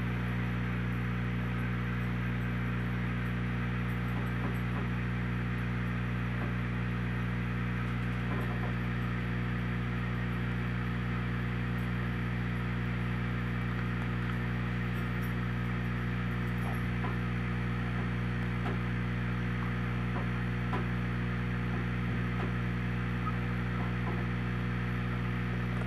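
Steady low hum with an even hiss above it, unchanging in level.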